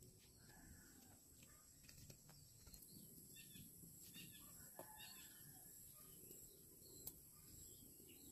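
Near silence: faint rural ambience with a few soft bird chirps and a couple of small clicks.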